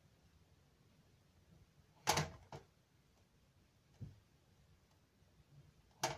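A few knocks and clicks against quiet room tone: a loud knock about two seconds in with a lighter one just after, a faint low thump around four seconds, and a sharp click near the end.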